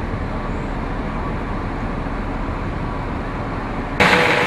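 Steady low rumbling machinery noise. About four seconds in it cuts abruptly to louder, brighter factory machinery noise with a few steady tones, from a glass-fibre (GRP) pultrusion line.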